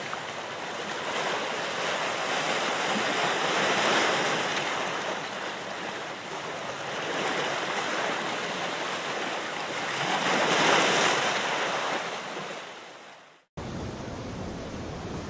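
Ocean surf: waves rushing in and washing back, swelling and ebbing about every three to four seconds. The surf fades out about thirteen seconds in, and a steadier, duller hiss takes over.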